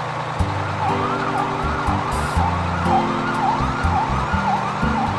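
Police car siren sound effect, wailing up and down about twice a second, starting about a second in.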